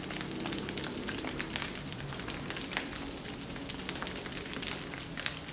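Grass fire in dry brush crackling: a steady hiss dotted with many small, sharp pops.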